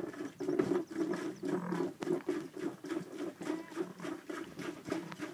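A ewe making a low, rhythmic rumbling murmur to her newborn lambs, pulsing about four times a second: the soft mothering call a ewe uses to bond with and call her lambs.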